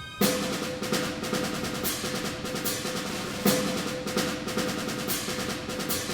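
Tense film-score music driven by a rapid snare drum roll over a held tone. It starts abruptly with a loud accent, and a second loud drum accent comes about three and a half seconds in.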